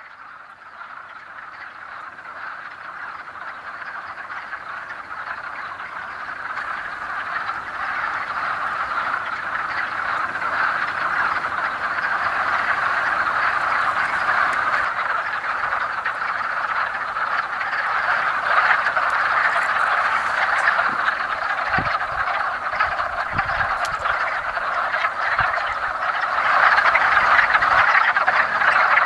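Breeding chorus of many male wood frogs calling at once, a dense unbroken mass of calls that fades in from silence and grows steadily louder.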